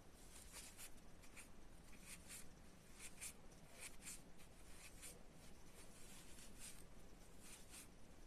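Faint, irregular soft scratching and rustling as cluster polyester fiberfill is pushed into a small crocheted amigurumi foot with a thin stuffing stick, about one or two strokes a second.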